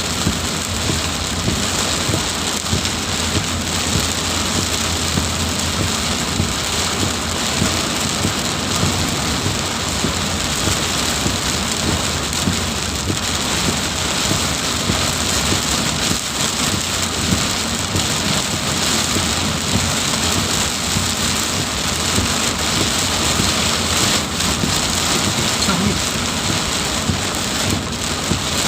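Heavy rain pouring steadily, an even hiss that holds at the same level throughout.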